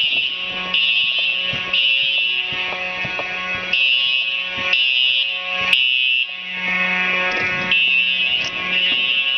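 Simplex fire alarm system sounding its alarm signal, pulsing about once a second, with a low hum coming and going underneath.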